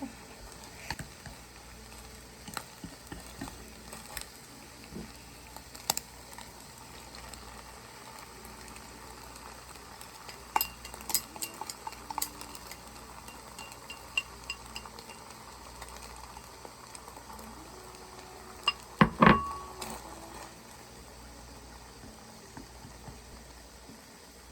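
Cooking in a kitchen: utensils clicking and clinking against pots and pans over a faint sizzle, with a louder metallic clatter toward the end.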